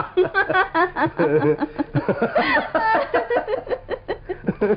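Laughter: giggling and chuckling in quick, choppy bursts.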